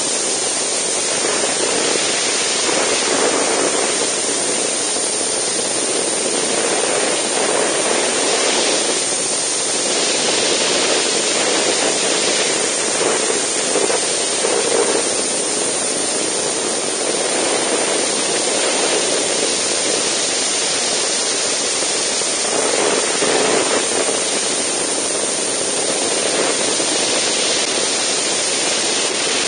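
Steady rush of wind over a motorcycle-mounted camera's microphone while riding at speed, with any engine sound buried in it.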